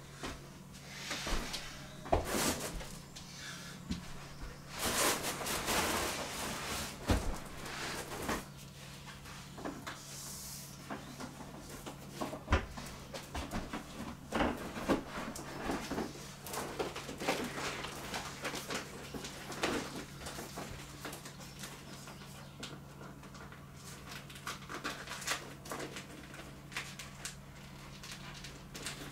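Handling noise from a deflated vinyl inflatable and a hand air pump: irregular crinkling and rustling of the plastic, with scattered knocks and clicks, over a steady low hum.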